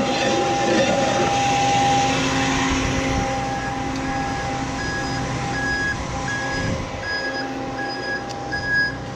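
Aerial ladder truck's engine running at a raised idle with the outrigger hydraulics switched on. Partway through, an evenly repeating alarm beep starts, about one and a half beeps a second: the warning that sounds while the outriggers are engaged.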